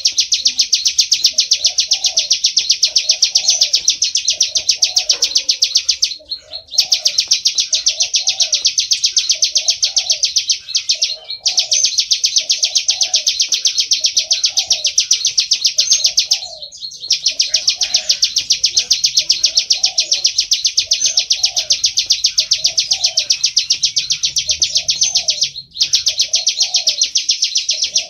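Plain prinia (prenjak or ciblek sawah) singing a rapid, high trill in long runs of about four to five seconds, broken by short pauses. Underneath, a fainter lower call repeats about once a second.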